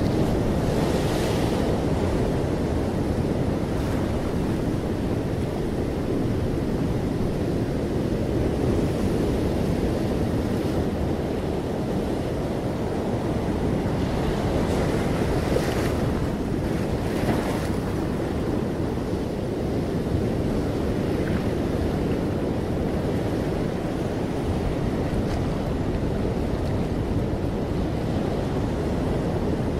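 Ocean surf breaking on rocks and washing up a sandy beach: a continuous low roar, with swells of brighter hiss from breaking waves near the start and again about halfway through.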